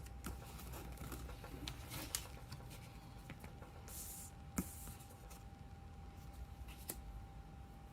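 Quiet handling of a Pokémon trading-card box and its packaging: faint rustling with a few sharp clicks, about a second apart at first, then twice more later, over a faint steady tone.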